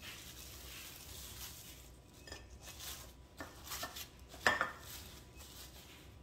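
Plastic cling wrap rustling and crinkling as it is pulled and pressed over a glass mixing bowl, with a run of sharp crackles, the loudest about four and a half seconds in.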